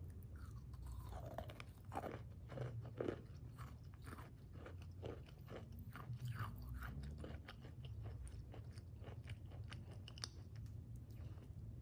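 Crunchy food being bitten and chewed close to the microphone: an irregular run of crisp crunches, loudest about two to three seconds in.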